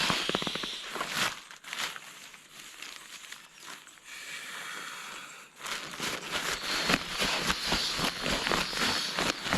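Nylon pump sack rustling and crinkling as it is rolled up to push air into an inflatable sleeping pad. The rustling eases off in the middle and picks up again about halfway through.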